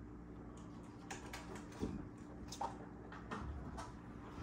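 Hands handling a new knobby WIG Racing motocross tire: irregular soft taps and rubs of the rubber knobs, starting about a second in. A faint steady hum lies underneath.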